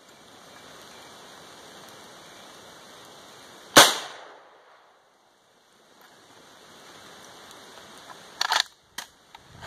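An M1A rifle fires a single plastic training round about four seconds in: one sharp crack with a short echo. Near the end come a few quick metallic clicks as the action is worked by hand, because the light plastic rounds do not cycle the semi-automatic action.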